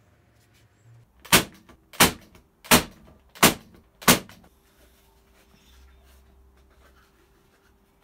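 Corded electric brad nailer firing five times in a steady rhythm, about 0.7 s apart, each shot a sharp snap with a short ring, driving nails through pallet wood.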